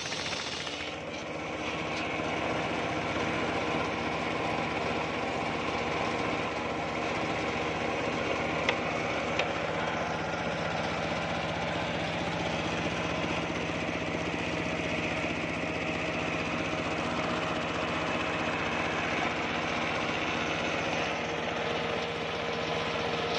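Homemade bench circular saw running steadily as it rips a coconut-wood log, a steady machine hum with the spinning blade's whine. Two short clicks about nine seconds in.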